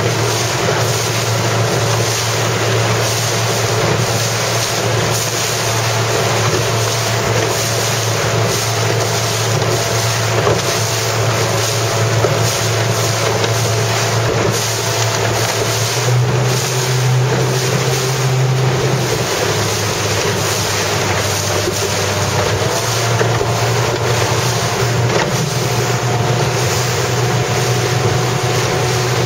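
Inflatable motorboat's engine running steadily at speed, its note rising for a few seconds about sixteen seconds in and then dropping back. Wind buffets the microphone and water rushes past the hull.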